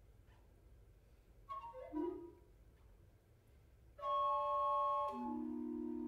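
Recorder quintet playing. After a quiet pause a short falling figure comes about one and a half seconds in. About four seconds in a loud held chord enters and then drops to lower sustained notes about a second later.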